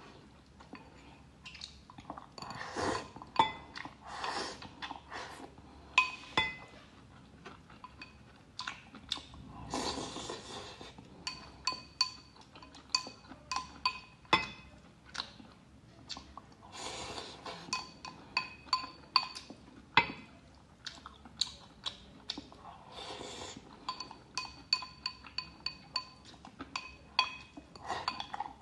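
Chopsticks tapping and scraping against a glass bowl while rice is scooped out, many quick clinks with the glass ringing briefly after the sharper ones, between stretches of softer scraping and eating noise.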